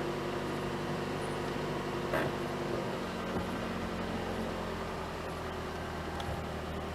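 A machine running steadily, a constant engine-like hum with several fixed tones, with a brief knock about two seconds in.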